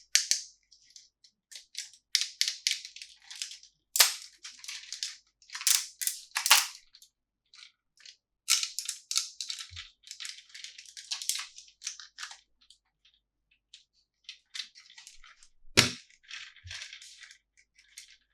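Plastic toy packaging and toy pieces being handled: irregular crinkly rustling and small clicks, with one sharp knock about three-quarters of the way through.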